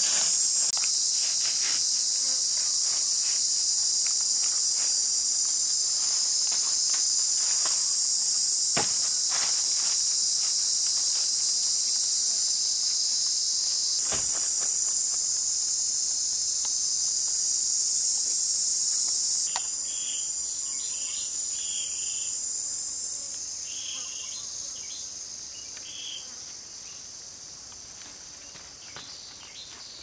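Loud, steady high-pitched insect chorus droning in the forest, with light knocks of bamboo poles being handled in the first half. The drone thins and fades away over the last several seconds.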